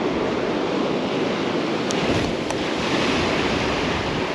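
Surf breaking and washing up a sandy beach, a steady rush of water with wind buffeting the microphone. Two faint ticks come about two seconds in.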